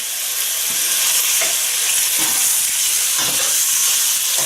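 Chicken pieces stir-frying with chilli curry paste in hot oil, sizzling steadily, with a spatula scraping through the pan roughly once a second.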